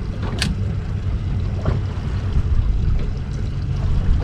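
Steady low rumble aboard a small fishing boat at sea, with a short swish about half a second in.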